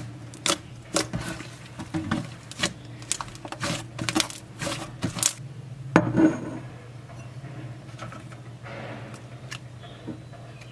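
Clicks and knocks of small hard objects being handled, about a dozen in the first six seconds with the loudest near the six-second mark, over a steady low hum; after that, only faint rustling and the hum.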